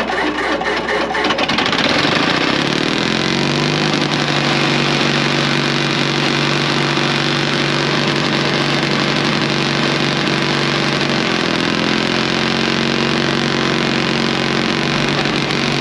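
1950s Caterpillar D6 crawler dozer's engine starting: a couple of seconds of clattering, then it revs up and settles into a steady run, with a slight shift in pitch near the end.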